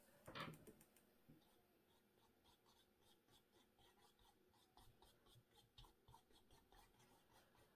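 Near silence, with faint repeated strokes of a small paintbrush dabbing paint onto a stretched canvas. There is a brief soft knock about half a second in.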